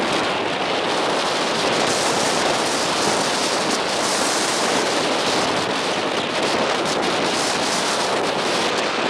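Steady wind noise on the camera microphone, an even rushing hiss with no let-up.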